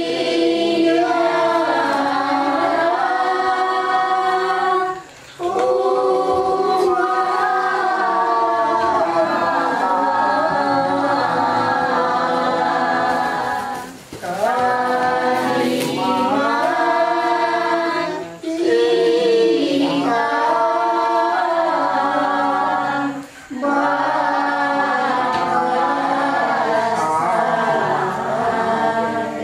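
Unaccompanied congregational singing of a Kaharingan hymn, several voices together in long sung phrases broken by four brief pauses.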